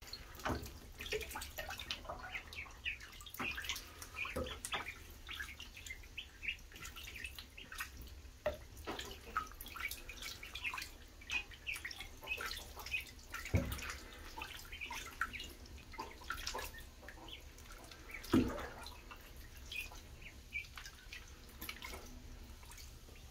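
A brood of Khaki Campbell ducklings peeping in quick, high chirps as they paddle in shallow bathwater in a tub, with light dripping and splashing. Two louder thumps come about halfway through and again later.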